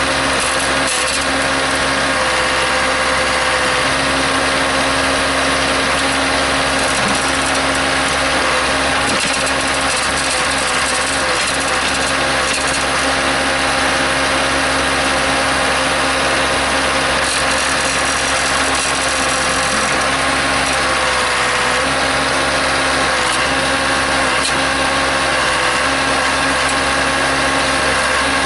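Case 580C backhoe's engine running steadily, its pitch sagging slightly a few times.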